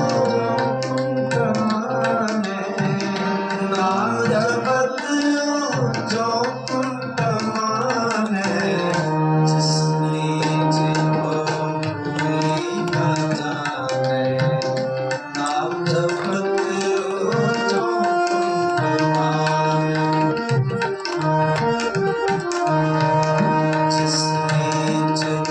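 Instrumental passage of Sikh kirtan: tabla playing a steady beat under held, stepwise melody notes, typical of a harmonium.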